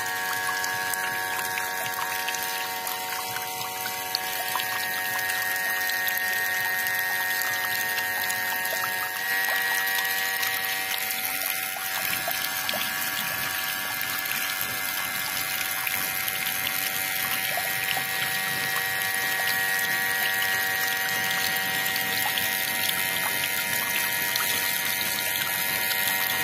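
Miniature model water pump running: its small motor gives a steady whine, with water pouring from the outlet pipe onto the soil. The whine shifts slightly in pitch about nine seconds in.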